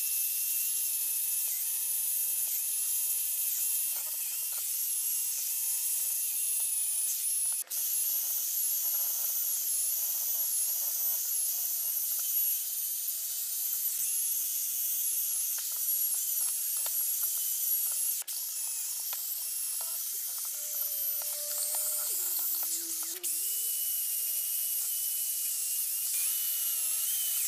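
Electric drill spinning a wire brush against a rusty, painted vise body, scrubbing off rust and old paint: a steady high-pitched whine with a few brief breaks.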